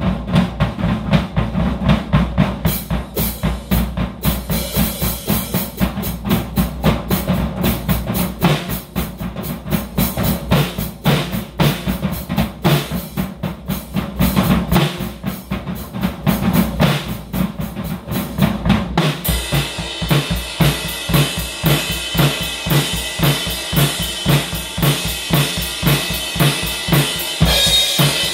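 Drum kit played with sticks: a busy pattern of snare, toms and bass drum, then, about two-thirds of the way in, Paiste cymbals start ringing in a continuous wash over a steady, regular beat.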